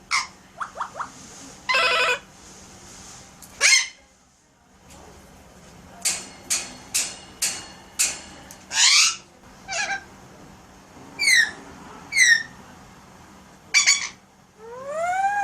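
Alexandrine parakeet calling in a string of short, sharp chirps, clicks and squawks, several falling in pitch, with a quick run of clicks midway and a rising whistle at the end: the bird's mimicked sound effects.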